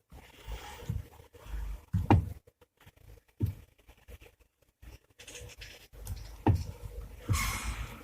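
Knocking from a Chery Tiggo 7's electric power steering unit as the steering wheel is turned: about five separate low knocks at uneven intervals, with a brief rustle near the end. It is a rare fault inside the steering assist unit that shows with the column locked in its lowest position, and it misleads suspension diagnosis.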